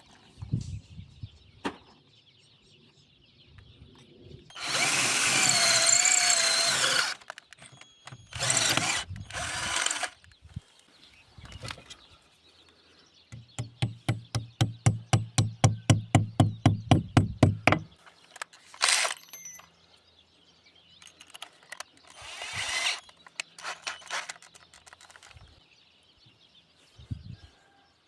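Power drill or driver running in short bursts, its whine wavering in pitch. In the middle there is a fast run of even, rapid strokes, about nine a second for some four seconds, over a low hum. Birds chirp faintly behind.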